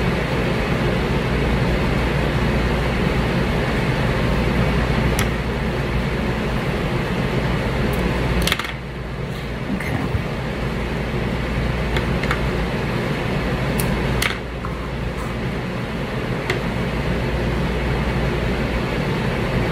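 Steady whir of a room fan running, with a few light clicks and rustles of ribbon being handled and tied into a bow.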